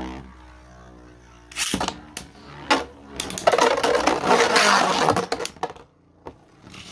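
Beyblade spinning tops whirring in a stadium, their pitch slowly falling, then sharp clacks and about two seconds of loud rattling and scraping as they collide, with a few more clicks near the end.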